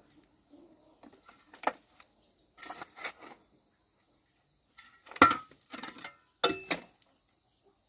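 A few separate sharp knocks and rustling clatters, the loudest about five seconds in, over a thin, steady, high-pitched whine.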